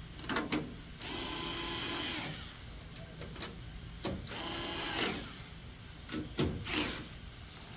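Power drill/driver running in two short bursts of about a second each, as when driving screws, with a few handling knocks between them.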